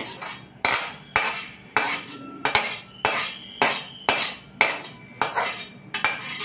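A metal spoon scraping and knocking against the inside of a metal kadhai, about two strokes a second, each stroke ringing briefly: the pan being scraped empty of roasted dry coconut.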